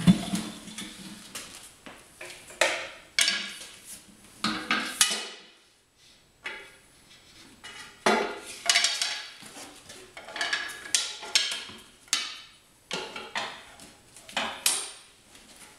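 Manual tire changer at work as a tire is levered off an aluminum alloy rim: a string of sharp metallic clanks and knocks from the steel tire bar against the changer's duckbill head and the rim, with scraping in between and a quieter pause about six seconds in.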